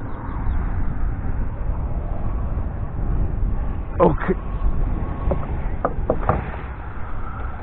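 Wind buffeting an action camera's microphone: a steady low rumble, with a few light clicks about two-thirds of the way through.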